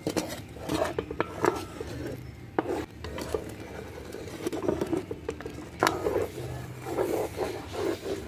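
Metal spoon stirring a thick shrimp cream sauce in a metal pot, with irregular clinks and scrapes of the spoon against the pot.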